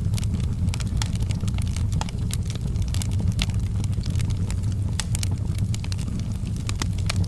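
Campfire burning: frequent, irregular sharp crackles and pops over a steady low rumble of the flames.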